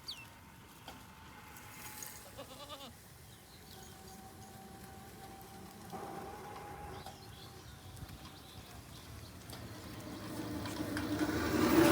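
Goat bleating: a short, wavering call about two and a half seconds in, over faint steady tones, with the sound growing louder near the end.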